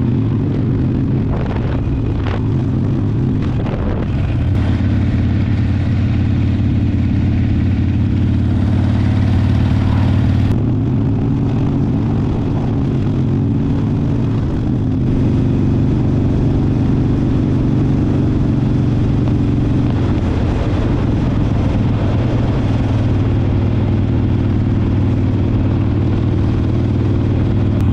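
Harley-Davidson V-twin motorcycle engine running at cruise through an aftermarket slip-on muffler, with wind and road noise, its note shifting a few times as the speed changes.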